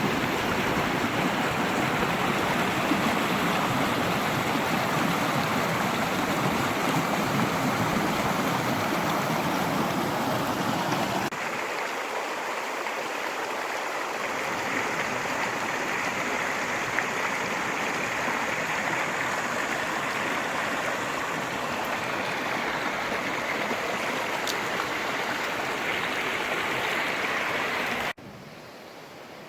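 Rushing stream water, a steady hiss and burble. About eleven seconds in the sound changes abruptly to a thinner rush with less low rumble, and near the end it drops suddenly to a much quieter rush.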